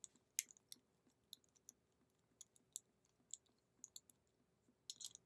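Faint, irregular light clicks and ticks from small lock parts and tools being handled, sharp and spaced unevenly, roughly three a second.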